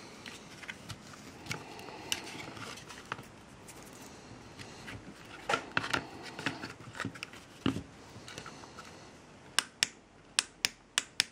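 Handling noise from working on a small LED inspection lamp: scattered light clicks, taps and scrapes of parts being fitted. Near the end comes a quick run of about seven sharp clicks.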